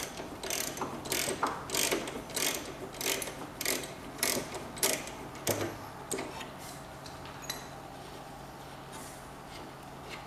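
Ratchet wrench clicking in repeated back-and-forth strokes, a little under two a second, backing out the bolt of a tractor's rubber engine-mount isolator. The strokes stop about six seconds in.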